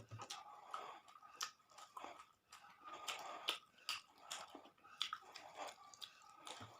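Close-miked chewing of a mouthful of food, with wet mouth clicks and smacks several times a second, faint and irregular.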